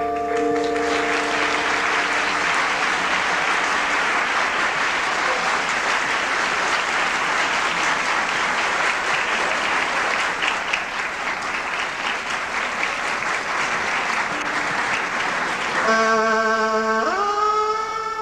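Background instrumental music. Held tones fade out at the start, a long stretch of even, applause-like hissing noise follows, and near the end pitched string-like tones come back with an upward slide.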